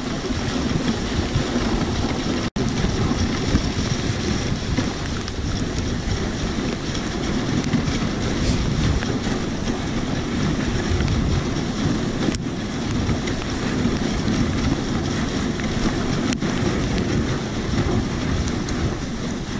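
Steady rushing noise of a dog sled running over packed snow, the runners hissing and rumbling, mixed with wind buffeting the microphone. The sound cuts out for an instant about two and a half seconds in.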